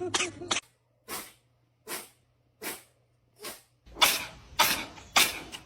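A pet sneezing over and over in a rapid fit, about nine short, sharp sneezes. A quick pair opens it, four fainter sneezes follow evenly spaced, and louder ones come faster from about four seconds in.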